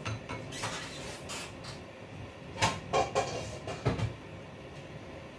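Kitchen cookware clattering: a few short knocks and clinks between about two and a half and four seconds in, over a steady low hiss from a pan of broth heating on low fire.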